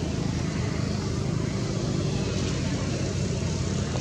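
Steady low hum under an even hiss, with no distinct calls or knocks.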